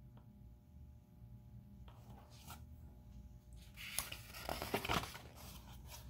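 A large picture-book page being turned, the paper rustling and crackling for about a second and a half, loudest about four to five seconds in, after a few faint taps of the book being handled.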